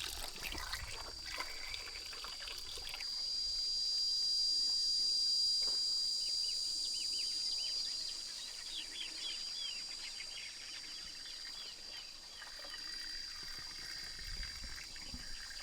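Insects buzzing in one steady high-pitched drone that grows louder for several seconds a few seconds in, with small bird chirps scattered through the middle.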